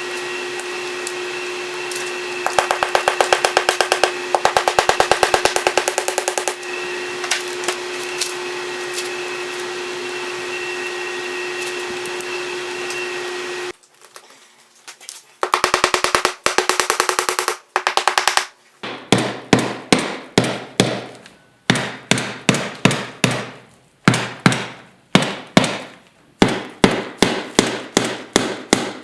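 Workshop tools at work on a seat cover. A steady motor hum runs for about the first half, with bursts of very fast rattling clicks. It cuts off, and in the second half a run of sharp taps or hammer strikes comes at about two a second.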